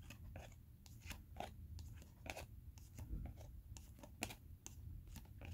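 Faint, scattered clicks and rustles of glossy Panini Prizm baseball cards being handled and slid over one another in the hands.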